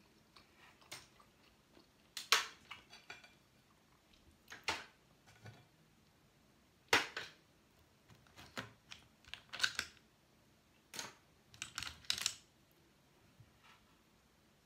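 Cooked seafood shells being cracked and peeled apart by hand: a scattering of sharp crackles and clicks, some in quick clusters, the loudest about two, seven and twelve seconds in.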